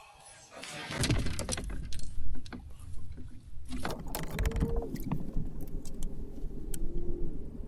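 Knocks, clicks and rattles of fishing gear being handled aboard a kayak, over a low steady rumble.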